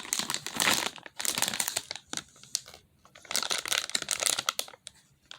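Plastic packaging of fidget-toy packs crinkling as it is handled, in two bouts of crackling with a short pause between.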